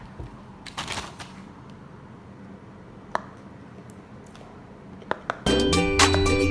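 A few soft scattered pops and clicks from a silicone pop-it fidget toy being pressed, then music starts suddenly near the end.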